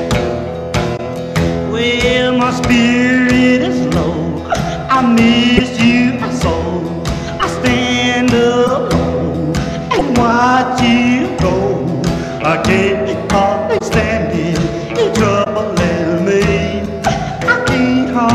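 Background pop song with a sung vocal over a steady beat.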